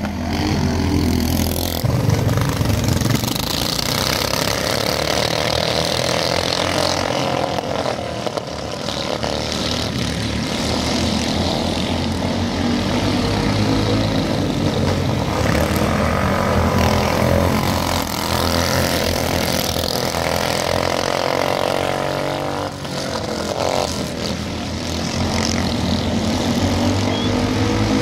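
A pack of 390 standard-class dirt-oval racing karts running at race pace, their 390cc single-cylinder four-stroke engines sounding together, the engine pitch rising and falling as they lap.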